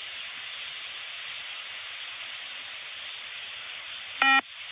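Steady hiss on the beep-test recording, then a single short electronic beep about four seconds in: the fitness test's signal that the shuttle time is up and the next one starts.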